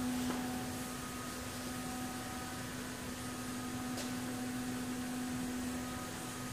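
Semi-automatic high-pressure bottle washer running during an operating test: a steady hum with a few fainter tones over a light hiss, and one faint tick about four seconds in.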